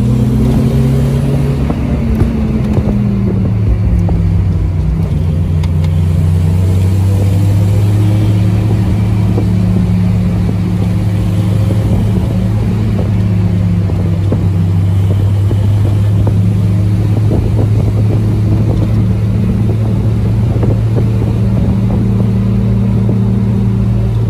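VW Golf Cabrio's supercharged G60 four-cylinder engine running under way, heard from inside the car's cabin over road noise. Its note drops over the first few seconds, then holds steady at cruising speed.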